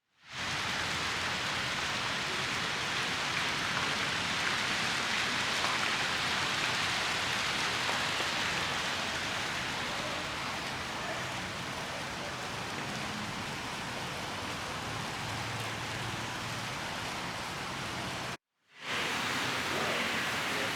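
A steady rushing hiss with no clear pitch, broken by a brief cut to silence about eighteen seconds in.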